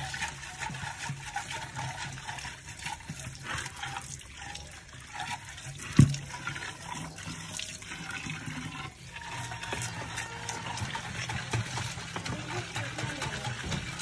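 Tap water pouring into a clay water pot (matka) and splashing as a hand scrubs and swirls inside it to rinse it out. A single sharp knock about six seconds in is the loudest moment.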